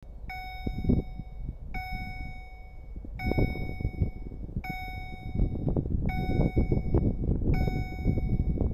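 Electronic railway level-crossing warning signal sounding a repeating tone, six long beeps about a second and a half apart. Under it runs a low, uneven rumbling noise that grows somewhat louder.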